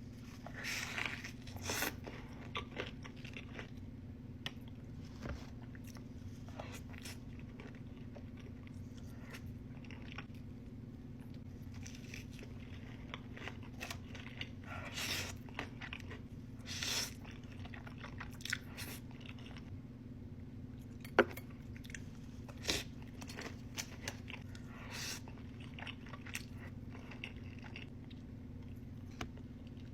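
Close-miked eating: intermittent bites, crunches and wet chewing of crunchy fried fast food. A faint steady low hum sits underneath throughout, and the sharpest crunches come about two-thirds of the way through.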